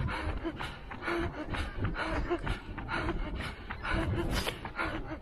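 A runner at racing pace breathing hard, with footfalls on stone paving at about three strides a second.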